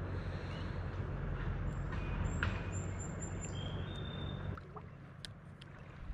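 Road traffic crossing the highway bridge overhead: a steady low rumble that drops away about four and a half seconds in.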